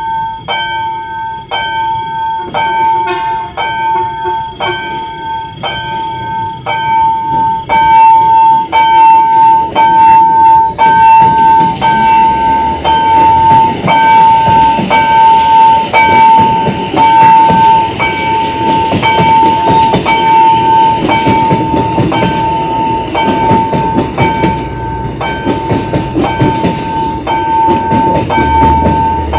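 Level-crossing warning bell dinging steadily, about one and a half strikes a second, as a train passes over the crossing; the rumble of the train on the rails builds from about ten seconds in and stays under the bell.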